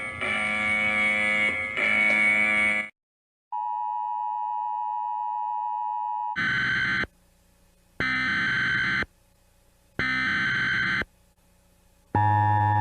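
Emergency alert broadcast audio in several parts. A loud electronic sound cuts off about three seconds in. A steady tone follows. Then come three one-second screeching data bursts, about a second apart, in the manner of an EAS header, and near the end a loud, harsh steady alert tone begins.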